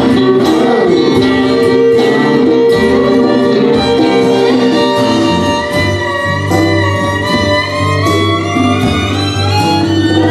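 Instrumental break: a violin playing a lead line over strummed acoustic guitars, with steady, regular strumming under the sustained violin notes.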